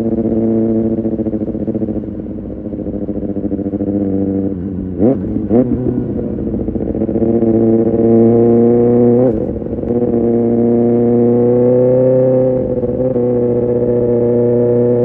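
Kawasaki ZX-6R inline-four with an Arrow Pro Race exhaust running at a steady, moderate pace, with two quick throttle blips about five seconds in and a brief rise in revs that drops off sharply about nine seconds in, as at a gear change.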